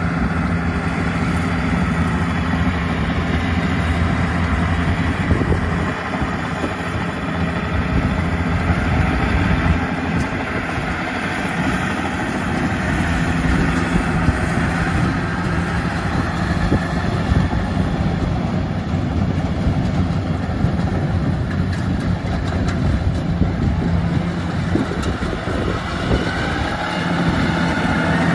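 Yanmar 820 rice combine harvester running steadily as it cuts lodged rice, a constant engine drone with the machine's mechanical din, joined by the engine of a tracked grain-sack carrier nearby. It grows louder near the end as the combine comes close.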